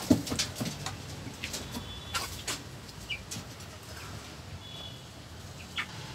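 Chickens in a coop: a hen flapping her wings right at the start, the loudest sound, then scattered sharp clicks and scratches as the birds move about, with a few short high chirps.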